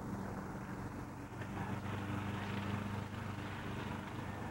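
Steady low hum with a faint hiss of outdoor noise.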